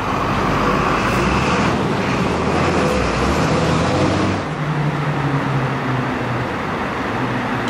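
Road traffic close by, with a heavy vehicle's engine running loudly for the first four seconds or so, then easing off to a steadier low hum.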